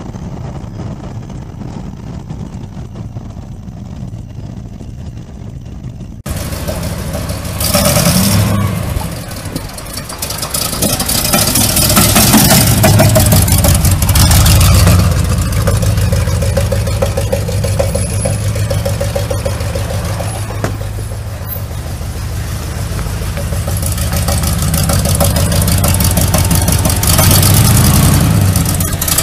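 Chevrolet Corvette V8 engines running and revving. A steady engine drone cuts about six seconds in to a louder recording, where the revs rise several times.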